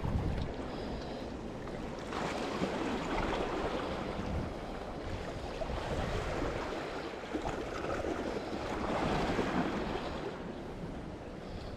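Sea waves washing against the rocks of a breakwater, a steady wash that swells louder a couple of seconds in and again about nine seconds in.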